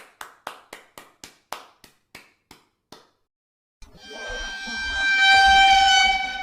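Edited comedy sound effects: a run of short, sharp taps, about four a second, that fade out after about three seconds. Then a steady held tone with several overtones swells up over a rushing noise and fades away.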